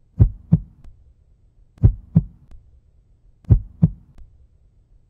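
Heartbeat sound effect: slow lub-dub double thumps, three pairs about a second and a half apart, over a faint low hum.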